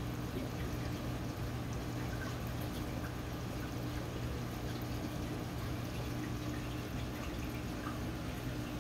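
Aquarium pumps and filtration running: a steady low hum with water trickling and splashing over it.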